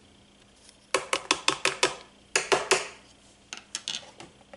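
A spoon tapping and clinking against a container in quick runs of sharp taps as cocoa powder is spooned in: a run of about seven taps about a second in, a shorter run a moment later, and fainter taps near the end.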